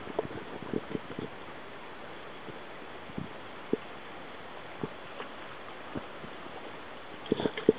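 River current running over a shallow, rippling stretch: a steady rushing hiss of flowing water, with a handful of short small knocks scattered through it.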